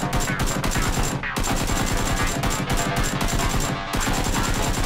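Rapid, machine-gun-like gunfire from a blaster being fired, over background music. There are short breaks about a second in and again near the end.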